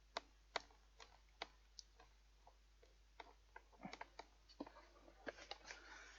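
Faint, irregular clicks and ticks of a hand screwdriver working a screw into a fan heater's casing, the screw going in gradually.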